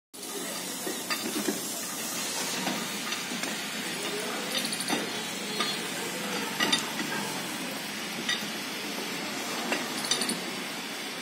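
Steel bar clinking against the screw jacks under a house as they are turned to raise it: sharp metallic clinks every second or two, some briefly ringing, over a steady hiss.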